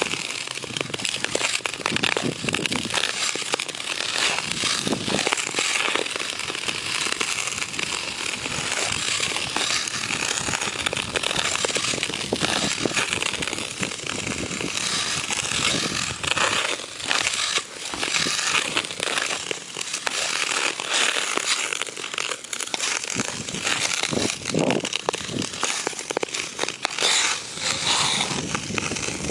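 Bauer hockey skate blades scraping and gliding over rink ice close to the microphone: a continuous crackling scrape of stride after stride.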